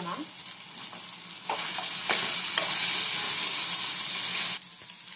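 Mutton pieces with onion and capsicum sizzling in a steel frying pan while a spatula stirs in freshly added black pepper powder. The sizzle turns loud and dense about a second and a half in as the stirring starts, and drops back down just before the end.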